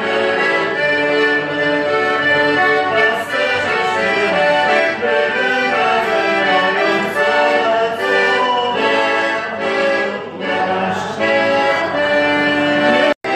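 Instrumental music led by an accordion, playing a melody over changing chords. The sound cuts out for a split second near the end, then resumes.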